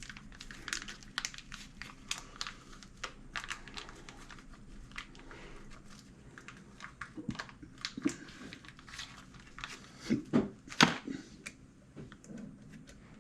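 Small metal tools and tooling being handled and rattled at a lathe bench while a center drill is picked out and fitted: irregular light clicks, with a few louder knocks about ten to eleven seconds in.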